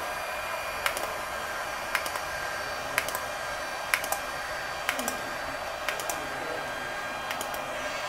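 Braun IPL hair-removal handset's internal cooling fan running steadily, with a sharp click about once a second, sometimes two close together, as it fires its light pulses one at a time.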